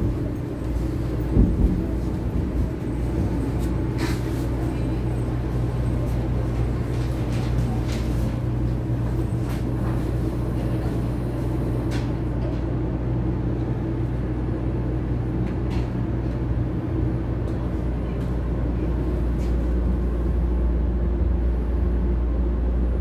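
Steady low rumble and hum inside the passenger cabin of a Series 500 Shinkansen, with a few faint clicks.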